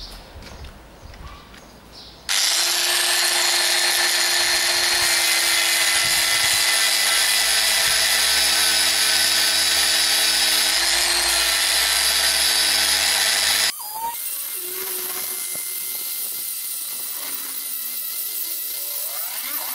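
Handheld rotary tool with a sanding disc grinding a wooden boat-mold block into shape. It starts suddenly about two seconds in as a loud, steady whine with a rasping hiss. After about eleven seconds it drops abruptly to a quieter, lighter sanding sound, and near the end the whine rises in pitch as the motor speeds up.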